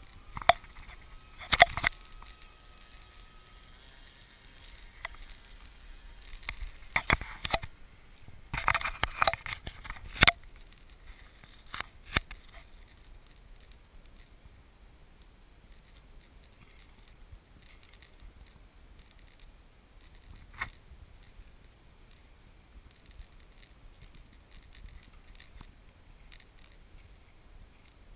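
Scraping, clicking and knocking from a GoPro action camera being handled and repositioned, in several bursts over the first dozen seconds, then only faint background with a single click about two-thirds of the way through.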